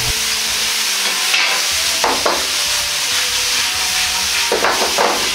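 Soy-based sauce sizzling in a hot wok, with fried chicken and eggplant pieces being stirred through it to coat them. Two short louder stirring strokes come about two seconds in and near the end.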